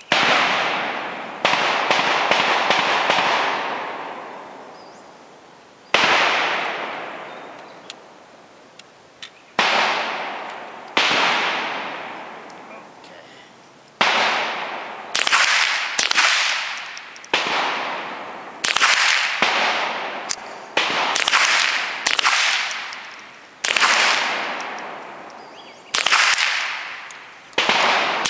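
Rifle shots from several shooters on a firing line: about eighteen sharp reports at irregular spacing, some in quick succession, each trailing off in a long echo over a couple of seconds.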